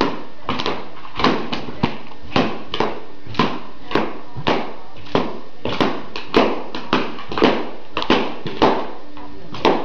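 Latex balloons popping one after another in quick succession, about two sharp pops a second, as a Jack Russell terrier bites through them.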